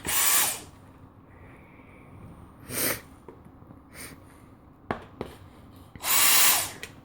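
Dyson vacuum cleaner switched on in three short bursts of about half a second each, a rush of air with a high whine in the louder ones. There are a few light clicks between the bursts.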